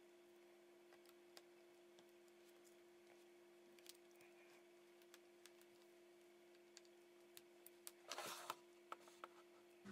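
Near silence with faint scattered clicks as flex-cable connectors are pressed onto a smartphone's board, over a faint steady hum. About eight seconds in comes a short, louder rustle and clicks as a USB charging cable is plugged into the phone.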